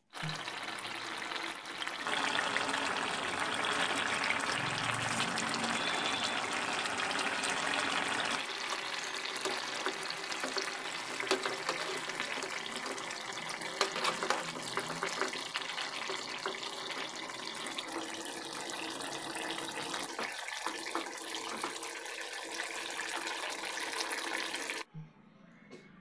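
Shol fish curry bubbling and sizzling in a frying pan: a steady hiss with scattered clicks and scrapes from a metal spatula. The hiss shifts abruptly a few times and stops about a second before the end.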